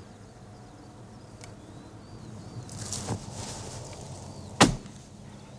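A single sharp shotgun shot about four and a half seconds in, by far the loudest sound. Under it is a low steady background with faint high chirps.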